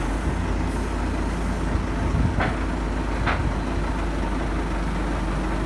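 Crane truck's diesel engine running steadily with a low rumble while it holds a marine engine on its hook, with two short knocks a little under a second apart around the middle.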